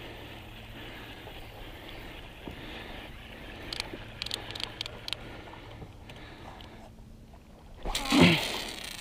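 Spinning reel being cranked to retrieve a lure, a steady low hum, with a few sharp clicks in the middle. Near the end comes a short loud swish and rush as the rod is swung out on a cast.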